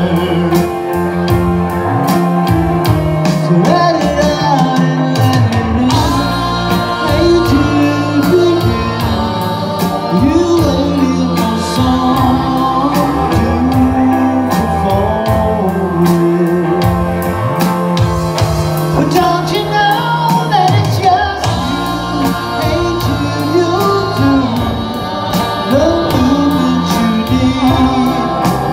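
Live rock band playing with electric guitars and a singer, over a steady beat.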